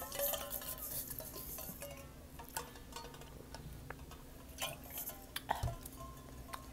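A stainless-steel water bottle being handled and drunk from: scattered small clicks and light clinks, with a dull thump about five and a half seconds in.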